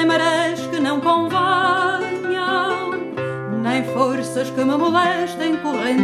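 Music: a wavering melody line over held bass notes that change every second or two.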